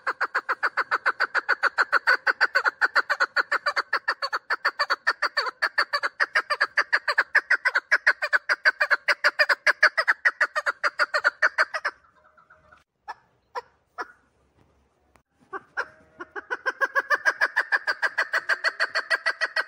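Chukar partridge calling: a fast, even run of clucking notes, about five a second. It breaks off about twelve seconds in, a few single notes follow, and the rapid calling starts again about three seconds before the end.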